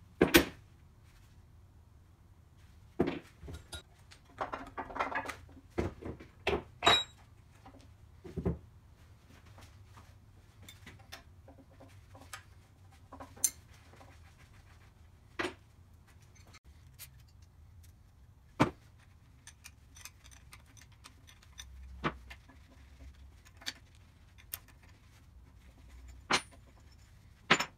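Hand tools and metal drill-press parts clinking, tapping and rattling during disassembly: a loud clank right at the start, a busy run of knocks and rattles a few seconds in, then single light clinks every second or two.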